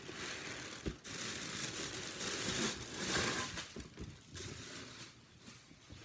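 Gift wrapping crinkling and rustling as a present is pulled open by hand, loudest in the middle, with one sharp knock about a second in.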